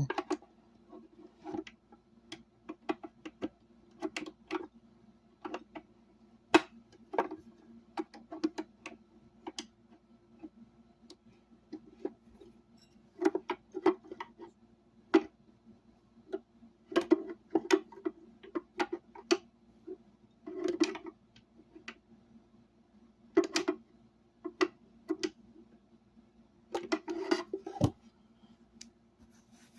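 Irregular clicks and short clatters of a screwdriver and extension bit being worked at screws inside a plastic speaker cabinet, with bunches of quick ticks at times.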